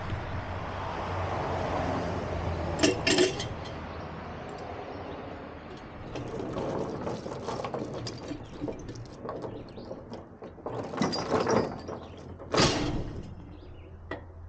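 Heavy metal chains being handled: clanking and rattling, with a few sharp clanks about three seconds in and a busy run of knocks and rattles toward the end, over a steady low hum.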